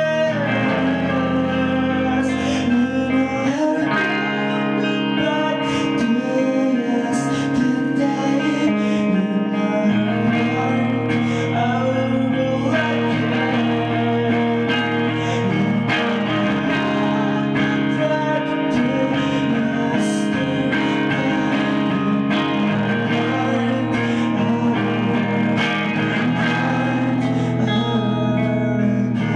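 Live music: a Gibson electric guitar played through an amplifier, with sustained, layered chords and notes running throughout, and a voice singing over it.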